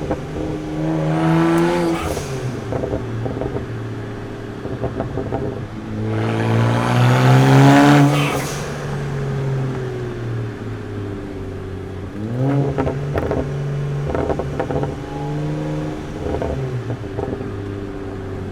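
BMW E93 335i's N54 twin-turbo inline-six, Stage 2 full bolt-ons, accelerating hard through repeated pulls. A short pull near the start, a longer, louder pull climbing in pitch about six to eight seconds in, then more on-and-off throttle with a few sharp pops in the second half.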